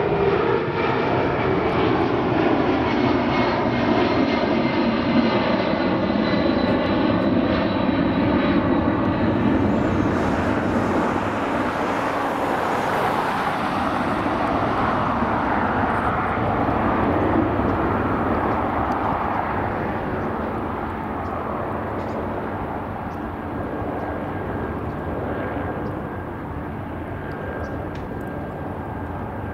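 Jet noise from a C-32, the military Boeing 757, climbing out after takeoff. A whining engine tone slides down in pitch over the first several seconds, and the roar slowly fades as the jet moves away.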